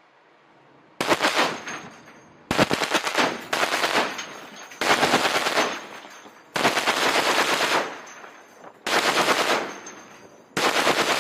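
Shipboard machine gun firing short bursts of automatic fire, seven bursts in all with pauses of about a second between them.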